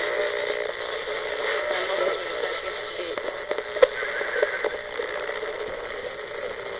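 Small AM radio speaker hissing with static between stations, with faint wavering whistles and a few sharp clicks, as the dial is tuned.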